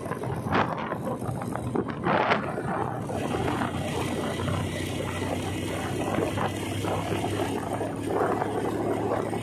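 Motorcycle running at steady road speed, with wind rushing over the microphone.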